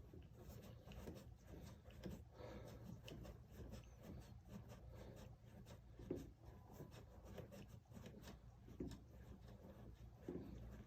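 Faint rubbing and a few light clicks of an open-end wrench working a McLaren 650S front hydraulic suspension accumulator loose, with no pop from pressure, over a low steady hum.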